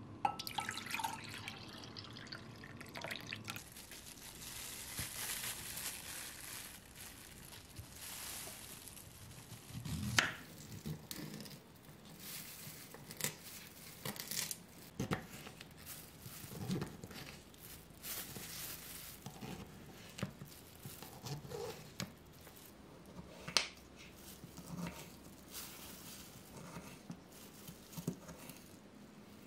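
A thick cocoa drink poured from a glass bowl into a glass tumbler. From about ten seconds in, a kitchen knife cuts beetroot on a wooden cutting board in separate, irregularly spaced knocks.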